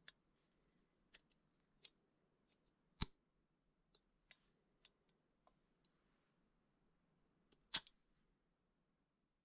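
Metal clicks of a c.1902 Kurbelspanner crank-cocked airgun's trigger mechanism and cocking rack being worked by hand, its volute springs removed. There are scattered light clicks, with two sharp, louder snaps about three seconds in and again near the end.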